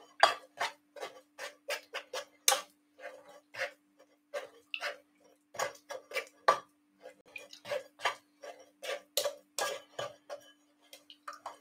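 Metal spoon scraping and knocking in a stainless steel mesh strainer, pressing blended apple, ginger and celery pulp to squeeze the juice through. Quick, irregular strokes, about three a second.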